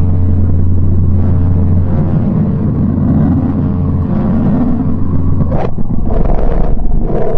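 Sonified space-probe data presented as the sound of Mercury: magnetic-field signals converted to audio, heard as a deep steady hum under rumbling noise. A sharp crackling burst comes about five and a half seconds in, followed by two rushing swells of hiss.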